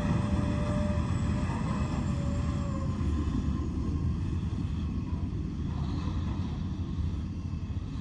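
Large mining dump truck driving away, a steady low rumble that slowly fades as it recedes, with a faint whine that dies out about three seconds in.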